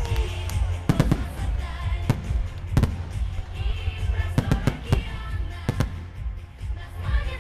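Fireworks salute: shell bursts bang in irregular clusters, the loudest about a second in and just under three seconds in, over a low rumble and music playing.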